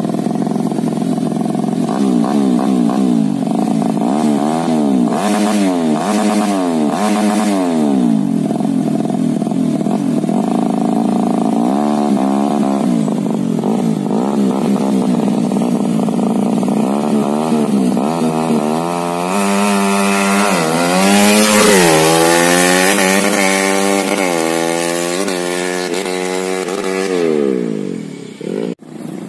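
Yamaha Jupiter 130cc motorcycle engine revving up and down again and again as it is ridden, its pitch climbing and dropping in repeated sweeps. It is loudest about two-thirds of the way through and cuts out briefly near the end.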